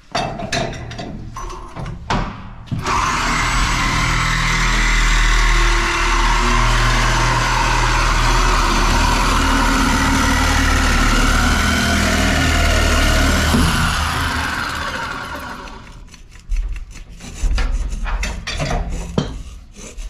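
Power saw cutting through metal tank pipe. It starts suddenly about three seconds in, runs steadily for about eleven seconds, then winds down. Metal clanks of pipe being handled come before and after.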